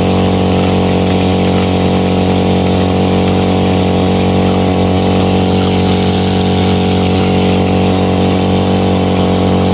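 Small engine running steadily at a constant speed, a dense even drone.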